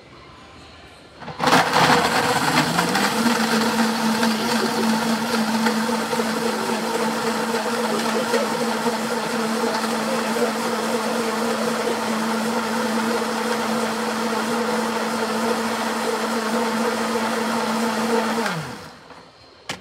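Commercial bar blender blending a strawberry daiquiri: the motor starts about a second and a half in, speeds up over a second or so, runs steadily for about sixteen seconds, then winds down near the end.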